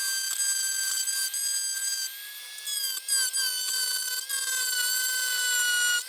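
Small high-speed rotary grinding tool running with a steady high-pitched whine, its pitch dipping a few times as the bit bites into the die-cast metal while grinding out the fixing that holds the model's front grille.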